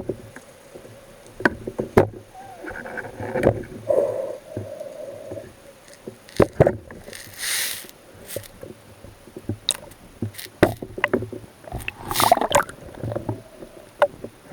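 Water sloshing and splashing, with irregular knocks and clicks and a short burst of hiss about seven seconds in.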